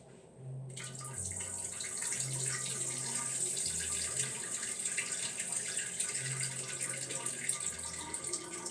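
A bathroom sound effect played from a phone: a steady stream of water splashing, like someone peeing into a toilet. It starts about a second in and runs on steadily.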